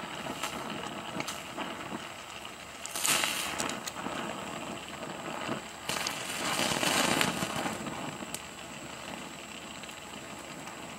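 Oxy-fuel gas torch flame hissing against steel plate while brazing, with crackling and small pops. The hiss swells louder twice: about three seconds in, then again around six to seven seconds.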